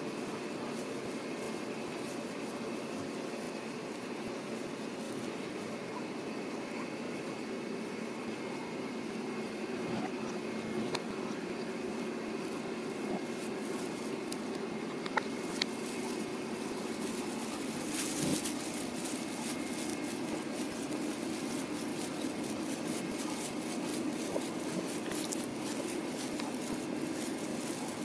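Steady household background hum, with a few light clicks and a brief rustle about 18 seconds in.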